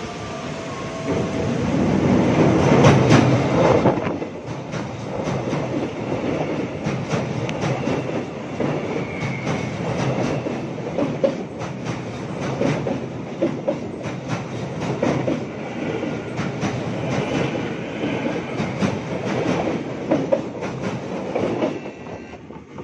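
Electric commuter train passing at close range over a bridge. The sound is loudest as the front cars arrive, about 2 to 4 seconds in. Then come the wheels' rapid rhythmic clicking over the rails as the cars roll by, dropping away near the end as the last car clears.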